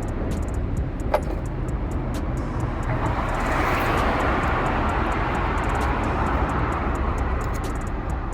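A passing vehicle over a steady low outdoor rumble, swelling about three seconds in and fading away. Scattered light metallic clicks, with one sharper clink about a second in.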